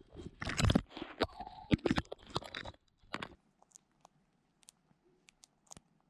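Kea biting and pecking at a GoPro camera right against its microphone: a quick run of crunching, scraping clicks for about three seconds, then only a few faint, scattered clicks.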